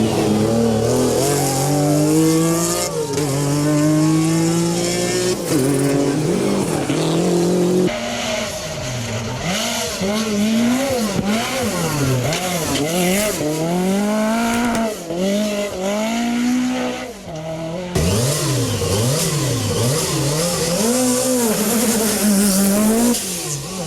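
Group B rally car engines at full throttle, revving up and dropping back again and again through gear changes and lifts, with a hiss of tyre noise. The sound changes abruptly twice, about eight and eighteen seconds in, as it jumps to another car.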